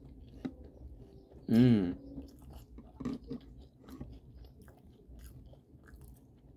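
A person chewing a mouthful of Trix cereal in milk: small crunches and wet mouth clicks. One short, loud vocal sound with a wavering pitch comes about a second and a half in.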